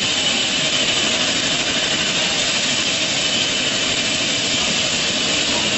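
Eurocopter EC120 light helicopter's turbine engine running steadily on the ground: a constant high whine over an even rushing noise.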